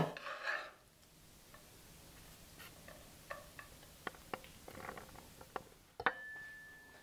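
Faint scattered clicks and taps of a metal slotted spatula scooping cheesy minced-meat filling out of a pan and spreading it onto the skewered meat on a wooden board. About six seconds in, a click is followed by a thin, steady high tone.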